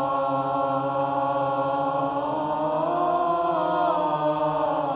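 Several voices singing a sustained 'oh' vowel together as a group warm-up on a warm, open tone. The held notes are steady, and one voice slides up in pitch and back down about midway through.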